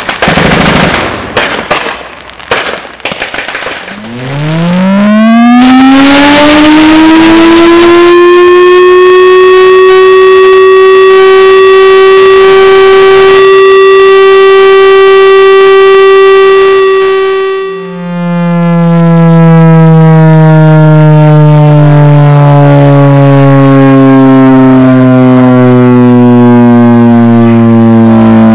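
A few last shots of gunfire, then an air-raid siren winds up about four seconds in, its pitch rising steeply to a steady wail. About eighteen seconds in it drops abruptly to a lower two-toned sound whose pitch slowly falls as it winds down.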